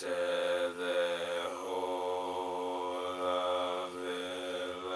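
A voice chanting a devotional prayer chant, drawing one word out into a long held note of nearly steady pitch for about five seconds.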